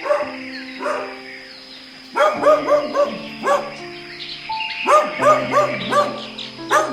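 Dog barking: two single barks, then quick runs of about five or six barks in a row. Light background music plays under it.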